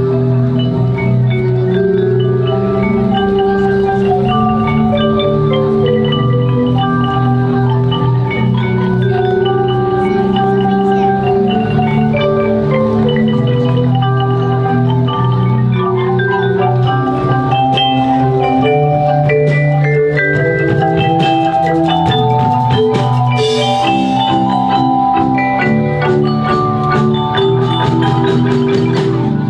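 A percussion ensemble playing marimba-type mallet instruments: quick runs of short struck notes over lower, longer-held notes, continuous and steady in loudness.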